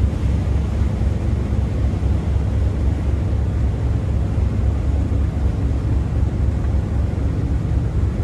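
Steady low engine rumble and hum of the Nanaura Maru passenger ferry under way as it pulls away from the pier.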